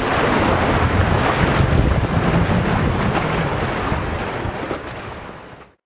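Rough seawater surging and churning around a sea kayak in a narrow rock gutter, with wind buffeting the microphone; the noise fades out near the end.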